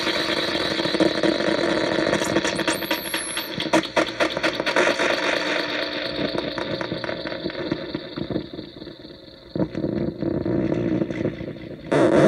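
Psychic Temple Transmitter, a finger-played Atari Punk Console–style touch noise synth with built-in echo/delay, making buzzing static with steady drones and rapid crackling, and a brief high squeal a few seconds in. The texture thins and quietens in the second half, then comes back loud near the end.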